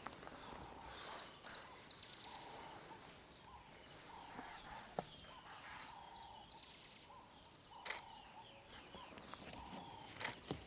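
Several birds calling faintly: high, falling whistled notes in quick runs of three, over repeated lower notes. Two brief sharp clicks come about halfway through and near the end.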